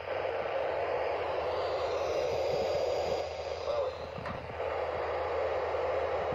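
Lashup of CN six-axle diesel-electric freight locomotives (SD75I, Dash 9-44CW and SD50F units) passing at track speed, a steady engine and wheel noise.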